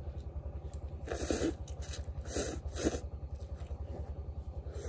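A person slurping instant noodles: three noisy slurps, the first the longest, over a steady low pulsing hum.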